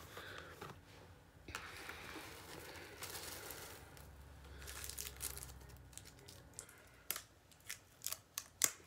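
Packaging rustling and crinkling as items are dug out of a subscription box, then a handful of sharp clicks near the end as things are handled.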